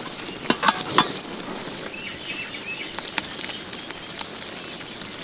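Tamarind gravy bubbling in a large open cooking pot: a steady fizzing hiss, with a few sharp clicks in the first second and two more about three seconds in.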